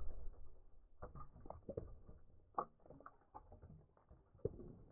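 Shards of a terracotta clay pot, just smashed with a hammer, clattering and skittering on concrete and a wooden stump in scattered clicks and knocks, with one sharp knock near the end.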